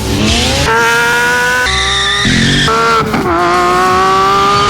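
Race car engine revving hard through several gear changes. Its pitch climbs, then steps down at each shift before climbing again.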